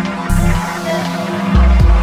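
Background music with held tones over a deep bass line.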